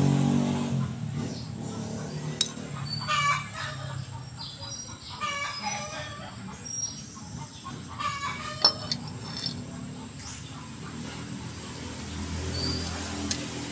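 Rooster crowing several times in the background, with a vehicle engine fading away in the first two seconds and a few sharp clicks.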